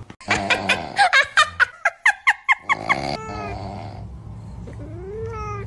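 Cat vocalisations from a meme sound clip. A quick run of short, sharp calls lasts about three seconds, followed by a steady low hum, and a short meow rises and falls near the end.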